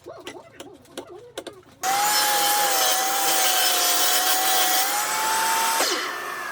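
A few light knocks, then a table saw starts suddenly and runs loud and steady with a whine for about four seconds. It is switched off near the end, and its pitch falls away as the blade spins down.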